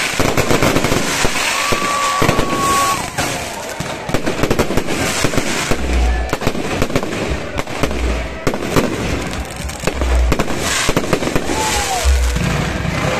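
Fireworks crackling and popping in a dense, continuous barrage, with a few whistling tones among them. From about six seconds in, deep thuds come roughly every two seconds.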